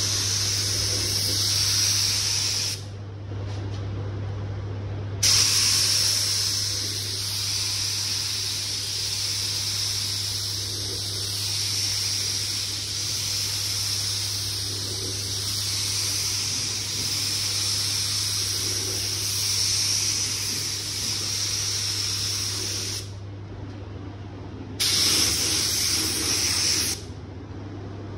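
Air-fed gravity spray gun hissing steadily as it sprays 2K car paint. The hiss breaks off briefly about three seconds in and again near the end, then stops just before the end as the trigger is let go, with a steady low hum underneath.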